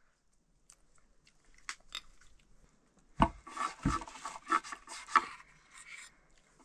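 Eating sounds: two dull knocks about three seconds in, then a couple of seconds of irregular chewing and crunching that fades out.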